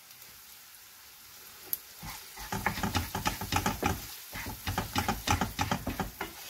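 Wooden spatula stirring and scraping frying onions and tomato paste around a nonstick frying pan, with a light sizzle under the strokes. The stirring starts about two seconds in, after a quieter stretch of low sizzle.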